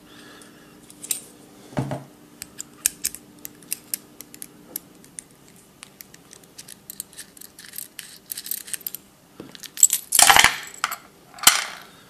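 Small metal padlock parts and an Allen key clicking and clinking as the lock is taken apart by hand, with two louder clatters near the end.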